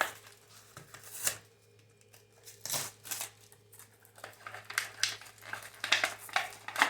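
Plastic blister packaging of a toy pack crinkling and crackling as it is worked open by hand, in scattered snaps that come thicker near the end.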